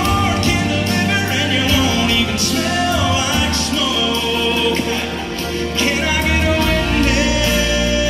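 Live gospel music: a singer with two acoustic guitars, over sustained deep bass notes.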